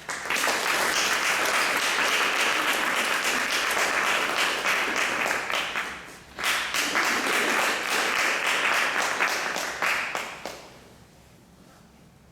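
Audience applauding, with a brief lull about six seconds in; the applause dies away about two seconds before the end.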